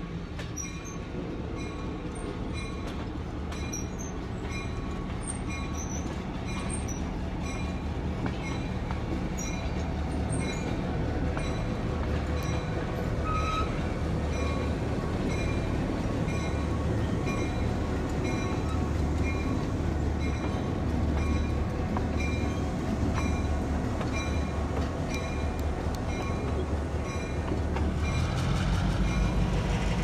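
Illinois Central GP11 diesel locomotive reversing slowly with its caboose, its engine rumbling with a pulsing beat that grows louder as it comes close near the end. A higher ring repeats at an even pace over it, likely the locomotive's bell.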